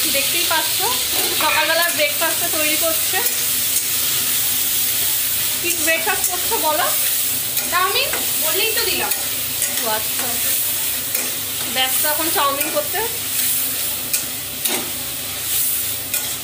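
Spatula stirring and scraping vermicelli as it simmers in milk in a kadai, with a steady sizzling hiss and scattered sharp clicks.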